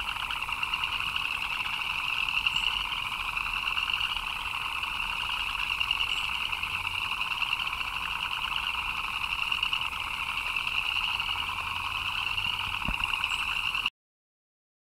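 A dense chorus of frogs calling continuously, a fast pulsing trill in a lower and a higher pitch band. It cuts off suddenly near the end.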